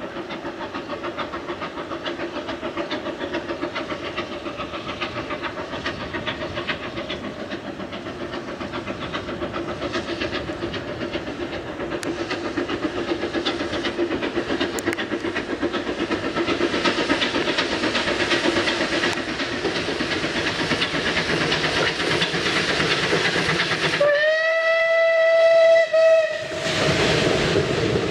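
Bulleid Light Pacific steam locomotive 34092 City of Wells, a three-cylinder engine, working hard up the line, its rapid exhaust beats growing steadily louder as it approaches. Near the end it gives one long whistle blast of about two and a half seconds, then passes close by in a rush of exhaust and steam.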